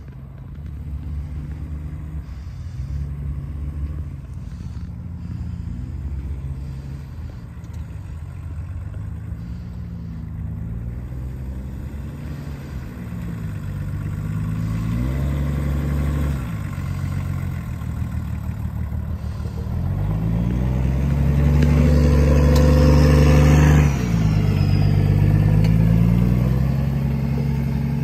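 Diesel engine of a Pinzgauer 718 six-wheel-drive truck pulling over dirt mounds, its pitch rising and falling as it revs up and eases off. It grows louder as the truck comes close, is loudest under hard pulling about three-quarters of the way through, then drops off suddenly before picking up again.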